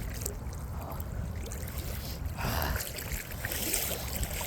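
Floodwater sloshing and splashing around someone wading through a swollen, fast-running creek, with a louder swell of splashing about two and a half seconds in.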